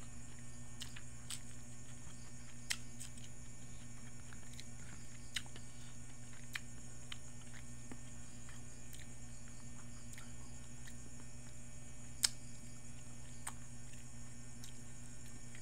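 A person chewing food close to the microphone: scattered soft mouth clicks and smacks, a few of them sharper, over a steady low hum.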